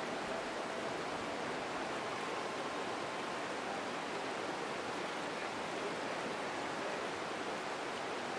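Steady rushing of a clear mountain river pouring over a rocky riffle.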